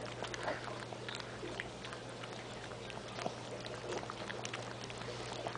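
Mother dog licking and nibbling at her newborn puppy: faint, scattered wet clicks and smacks, over a steady low hum.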